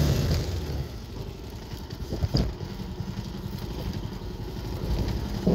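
Motorcycle engine running steadily during a ride, with one short sharp knock about two seconds in.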